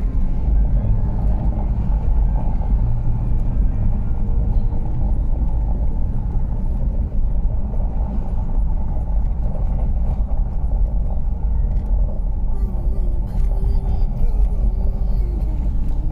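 Steady engine and road rumble heard inside a moving car's cabin. A faint wavering tone joins it in the last few seconds.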